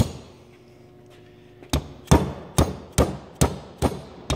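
Small soft-faced mallet tapping a bendable metal gear shield down onto a multifuel hydraulic head to seat it. One tap, a pause of about a second and a half, then a run of about seven quick, even taps, roughly two and a half a second.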